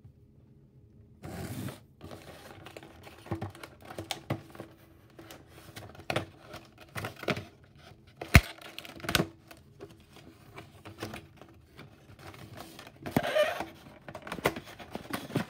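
Handling noise as a cardboard model-aircraft box is handled and opened on a table: irregular clicks and knocks with bursts of scraping and rustling, the sharpest knock about eight seconds in.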